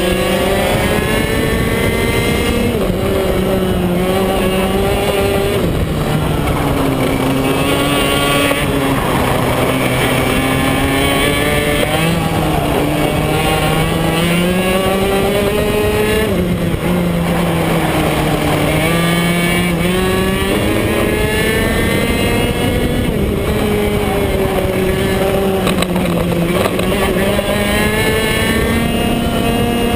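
BMB KF2 125 cc two-stroke kart engine at racing speed, its pitch climbing on the straights and dropping into each corner, again and again, as the kart laps the track.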